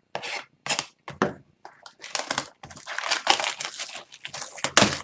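Sealed retail box of hockey cards being cut and torn open by hand: irregular crinkling and tearing of the wrapping, a few short scrapes at first, then denser rustling, with a sharp snap near the end.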